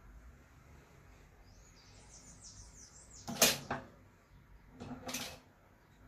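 Two sharp metallic clacks from a JMA hand-operated reloading press as its ram and handle are cycled on a 9mm round, the first about halfway through and louder, the second under two seconds later. Just before them a bird chirps a quick run of high, falling notes.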